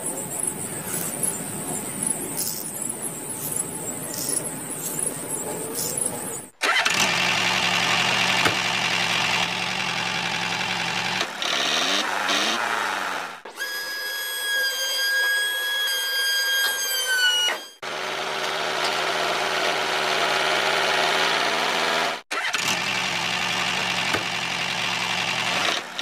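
Steady engine-like running sounds of miniature model tractors, in several abrupt edited clips. In the middle a clear high whine holds steady for about four seconds, then drops in pitch as it stops.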